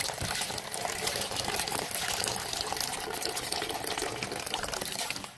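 Tap water running steadily into a plastic bowl of soaked brown rice, splashing as a hand swirls the grains to rinse them.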